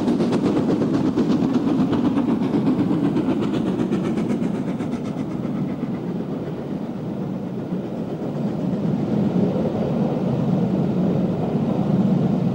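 LMS Princess Royal class 4-6-2 express steam locomotive working hard past with a train of coaches, its exhaust beating rapidly for the first few seconds. The coaches then rumble by, the sound dipping and swelling again near the end.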